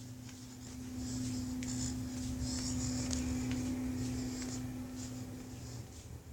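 A steady low hum that swells about a second in and eases off toward the end, with faint scratchy rustling over it.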